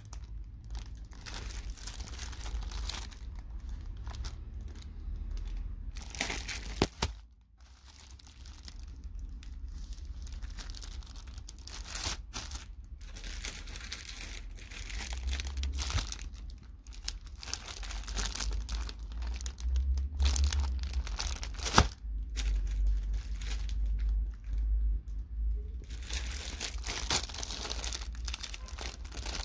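Clear plastic packaging around folded PVC tablecloths crinkling and rustling as the packages are handled, in irregular bursts of rubbing, with a couple of sharp clicks.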